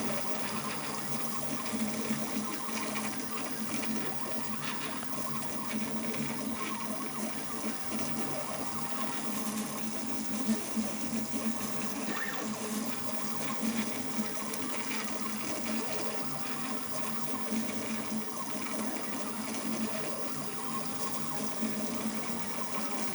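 3D printer running a print: its stepper motors whirring and buzzing continuously as the print head moves, in shifting tones.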